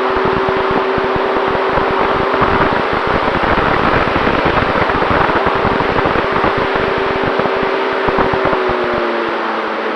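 Electric motor and propeller of an FX-79 flying wing whining steadily in flight, with wind buffeting the onboard microphone. The motor's pitch drops slightly near the end.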